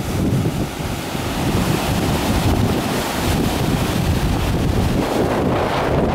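Ocean surf breaking and washing over itself in a steady roar, with a brighter hiss about two to three seconds in. Strong wind buffets the microphone throughout.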